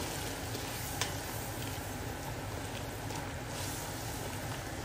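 Potato, carrot and stock stew simmering in an enamelled cast-iron casserole with a steady low hiss, while a spoon stirs and scrapes the stuck-on bits off the pot's base to deglaze it. There are a couple of light spoon knocks about a second in.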